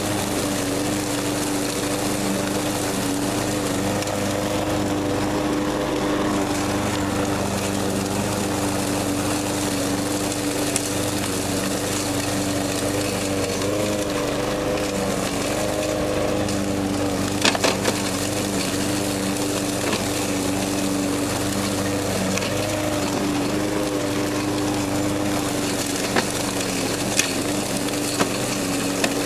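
Troy-Bilt TB360 walk-behind lawn mower engine running steadily while the mower mulches dry leaves. A few sharp cracks of debris hit by the blade, the loudest a cluster a little past halfway and more near the end.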